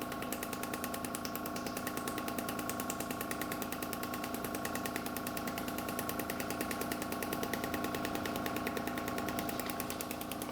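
Radial shockwave therapy device running: a fast, even train of clicking pulses over a steady machine hum.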